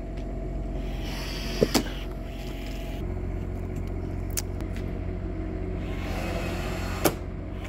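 A steady low mechanical hum, like an engine idling. Over it come a few sharp metallic clicks from rivet work on aluminium RV roof edge trim: two close together about a second and a half in, and another near the end.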